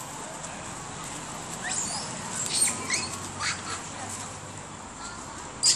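A quick run of short, high-pitched squeaky calls with sliding pitch about two to four seconds in, then one sharp, loud high call near the end.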